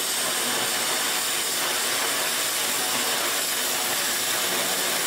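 Welding on a steel pipe: a steady, even hiss.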